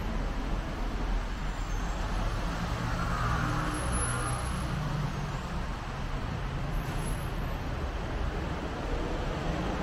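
Steady road traffic noise from cars and motorbikes on a busy city street, a continuous din of engines and tyres with a low rumble.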